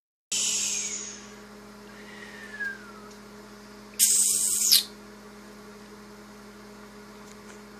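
A steady low hum runs in the room. About two seconds in comes a faint, high, falling mew from a very young kitten. About four seconds in there is a short, loud burst of high hiss lasting under a second.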